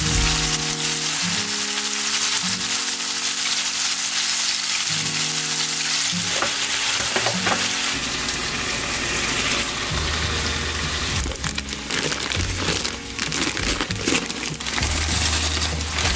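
Raw chicken breasts sizzling in hot oil in a frying pan, a steady hiss, over background music. A scatter of light clicks comes in the last few seconds.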